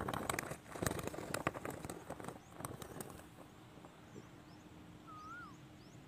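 Rapid crackling and rustling clicks for about three seconds, then a quieter outdoor background with faint high chirps of small birds and one short whistled bird call, rising then falling, near the end.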